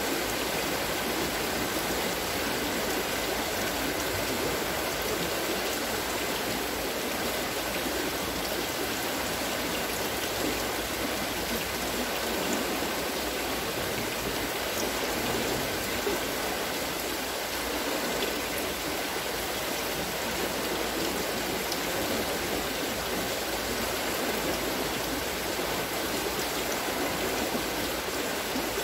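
Water spilling and splashing steadily from the scoops of a wooden water-scooping wheel, a continuous rushing patter.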